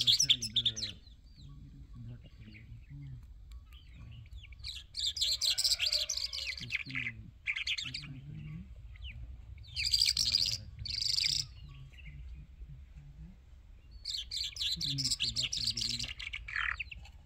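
An Irani jal songbird singing in several bouts of rapid, high twittering, separated by short pauses.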